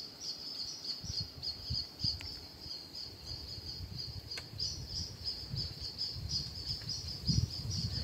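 Forest insects, likely crickets or katydids, chirping in a steady high-pitched chorus that pulses a few times a second, over a low rumble.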